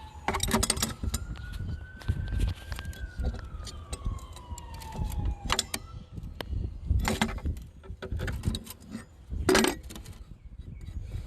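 Small metal parts clinking and knocking as a broken brass bar-saver fitting and the surface cleaner's bar are handled. A faint siren wails slowly down, up and down again through the first half.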